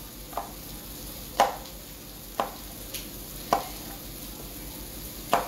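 Chef's knife slicing a serrano chile on a plastic cutting board: six sharp knocks of the blade on the board, irregularly spaced about a second apart. A faint steady frying sizzle runs underneath.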